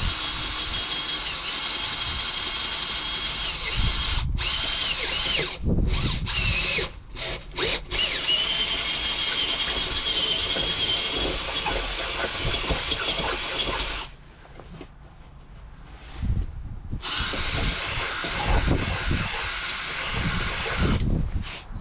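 Cordless drill boring into a wooden van floor, the motor whining steadily. It stops and restarts briefly a few times, pauses for a few seconds about two-thirds of the way through, then runs again.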